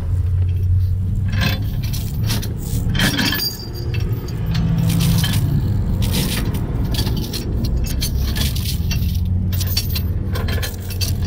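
Heavy steel tow chains clinking and rattling in many short, sharp clinks as they are handled around a tow truck's underlift, over a heavy low rumble of strong wind on the microphone.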